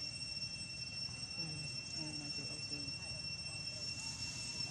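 Steady high-pitched drone of insects: two held tones that run on without a break.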